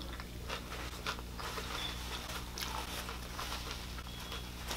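A person chewing a mouthful of bread-and-butter pickle chips, with faint scattered wet mouth clicks and crunches.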